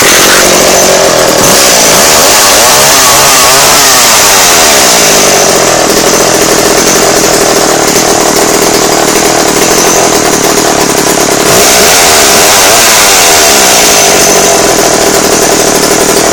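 Skil gas chainsaw catching on the pull cord and running loudly, its engine revved up and back down a few seconds in and again about twelve seconds in.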